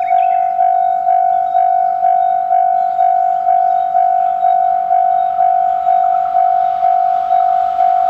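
Japanese railway level-crossing warning bell ringing, a loud electronic ding repeating about twice a second. An approaching train's noise grows in underneath over the last couple of seconds.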